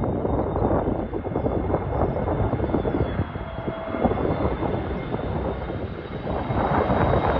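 Jet engines of an easyJet airliner on approach to land: a steady rushing roar with a faint high whine, swelling a little near the end.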